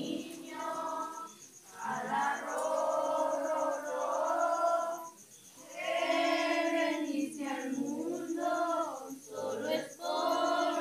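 A group of people singing a slow song together in unison, in long held phrases with short pauses for breath between them.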